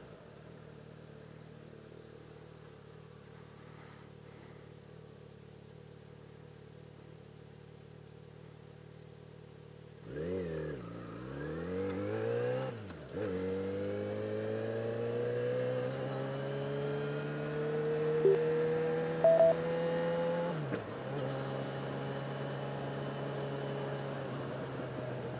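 Yamaha XJ6's 600 cc inline-four engine running, steady and fairly quiet at first. About ten seconds in, its pitch twice dips sharply and recovers, then it climbs slowly under acceleration before dropping at a gear change near the end. Two short beeps sound a little before the gear change.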